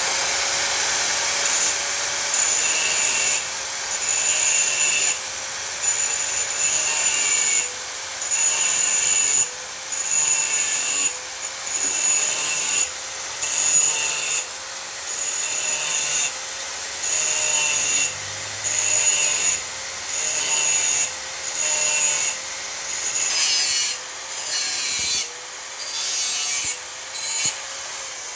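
Handheld electric power tool cutting a hole in the thin sheet steel of an old oil filter housing: a steady motor whine with about one loud scraping stroke a second as the tool bites into the metal, the motor pitch dipping slightly under each bite.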